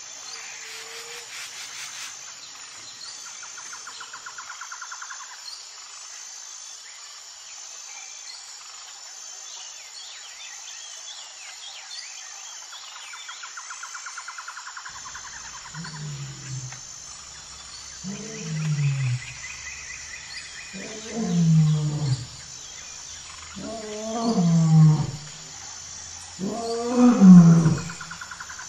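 Male lion roaring: five deep calls about three seconds apart, each louder than the one before. For the first half there are only birds chirping and insects trilling.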